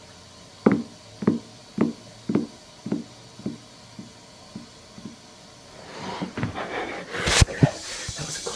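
Footsteps walking away behind a door: about nine dull thuds, roughly two a second, growing steadily fainter. Then rustling handling noise close to the microphone, with one sharp thump.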